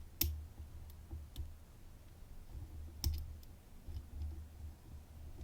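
Faint clicks of a dimple pick and tension tool working the pins of a Domus dimple Euro cylinder during single pin picking: a sharp click just after the start, a few light ticks, and a small cluster of clicks about three seconds in, over a low handling rumble.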